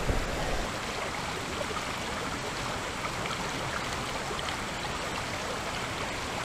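A shallow creek running over rocks and riffles makes a steady rush of water.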